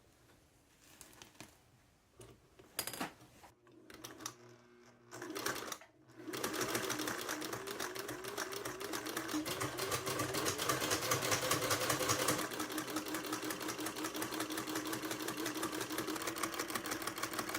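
Vintage straight-stitch sewing machine fitted with a buttonhole attachment, sewing a buttonhole with a fast, even stitching clatter. It starts about six seconds in, after a few light handling clicks.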